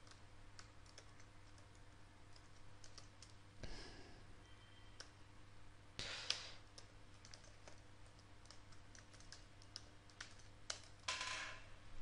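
Faint typing on a computer keyboard, irregular key clicks in short runs, over a steady low hum. A few louder brief noises stand out about 4, 6 and 11 seconds in.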